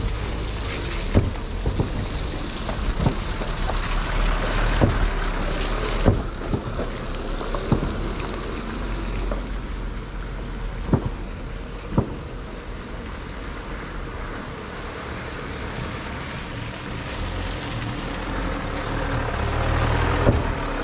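Vehicles driving across an old timber plank bridge: engines running close by and the loose boards giving sharp knocks under the wheels, over wind on the microphone. A vehicle's engine draws nearer again near the end.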